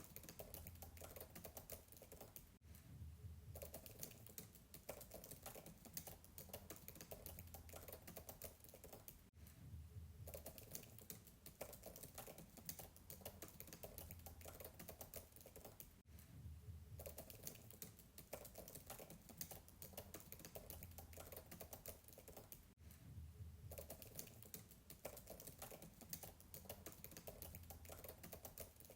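Fast typing on a MacBook keyboard, faint and distant: a dense, continuous run of soft keystrokes that breaks off briefly about every seven seconds.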